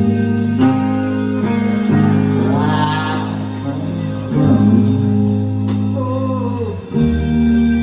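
Live rock band playing a slow ballad: sustained chords over a bass line with steady cymbal ticks, and a wavering melody line carried over the top.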